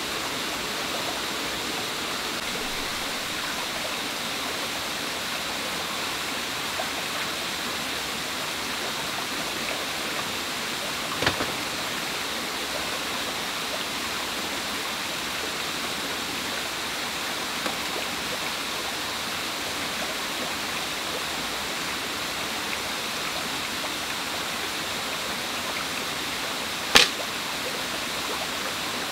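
A stream running steadily over rocks, with two sharp snaps from a homemade crossbow being drawn and tested: a short one about eleven seconds in and a louder one near the end.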